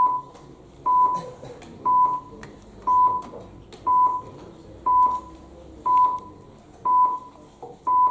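Electronic voting system's countdown beeping: a single steady mid-pitched beep about once a second, each under half a second long, nine in all, ticking off the seconds left to vote.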